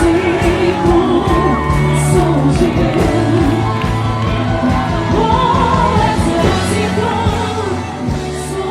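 Worship music with a steady beat and bass, a voice singing over it and some crowd voices joining in.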